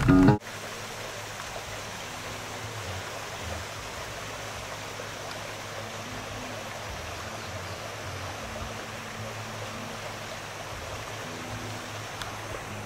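Steady rushing of a small creek's flowing water.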